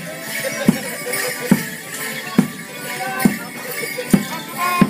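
Border morris dance music: a bass drum struck on a steady beat, a little more than once a second, under a melody.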